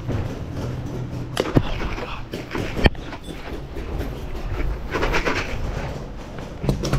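Paintball markers firing as a round starts: a few sharp pops about one and a half and three seconds in, the loudest near three seconds, with more near the end. Under them is the rustle of players moving.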